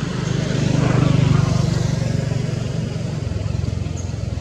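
A motor vehicle's engine running close by, swelling to its loudest about a second in and then easing off as it passes.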